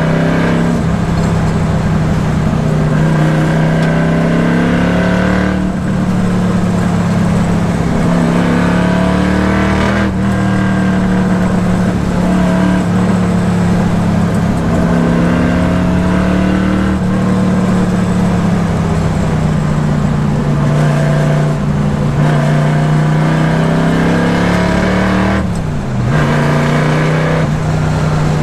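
1965 Shelby GT350's 289 V8 engine running under way, a loud, steady engine note with brief drops in pitch and level a few times, like gear changes.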